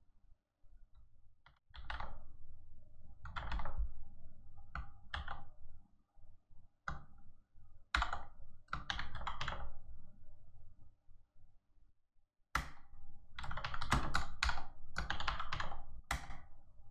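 Typing on a computer keyboard in short bursts of keystrokes separated by pauses, with a longer, denser run of keys near the end.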